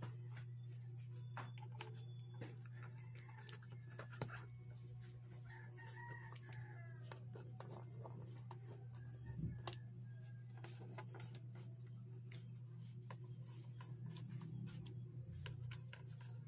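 Low, steady hum from a powered speaker's amplifier, with scattered light clicks and knocks as an RCA plug is pushed into and handled at the input jacks. A rooster crows in the background from about three to seven seconds in.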